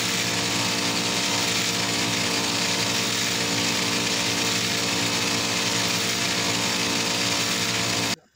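Industrial sewing machine running steadily at speed while stitching through a thick quilted comforter, a continuous whirring motor and needle drive that cuts off suddenly near the end.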